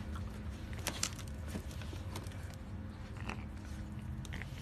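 Faint crunching with a few scattered sharp clicks over a low steady hum.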